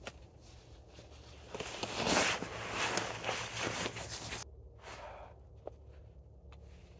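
Rustling and crunching of someone moving through dry leaves and brush. It grows loudest in the middle and stops abruptly about four and a half seconds in, leaving faint scattered clicks.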